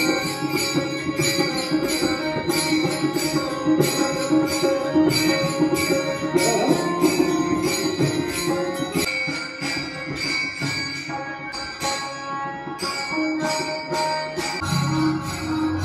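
Devotional bhajan sung by a group, kept in time by small hand cymbals (taal) clashing in a steady beat.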